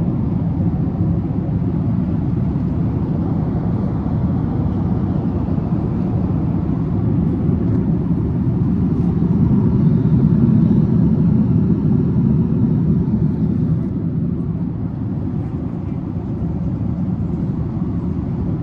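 Steady low rumble of a travelling vehicle heard from inside its cabin.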